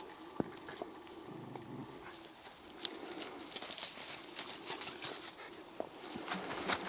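Puppies at play giving short low growls, once about a second in and again near the end, with scattered rustles and clicks from paws in dry grass and leaves.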